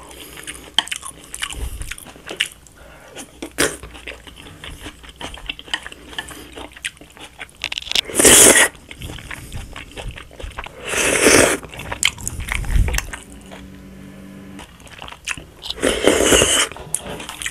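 Close-up mukbang eating: a wooden spoon clicking and scraping on a plate as jajangmyeon black-bean sauce is scooped up, with chewing, and three loud slurps of sauce about 8, 11 and 16 seconds in.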